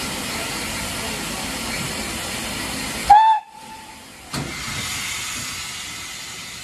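Steam hissing steadily from a BR Standard Class 9F steam locomotive, then one short, loud blast on its whistle about three seconds in. The hiss breaks off and comes back with a knock a second later.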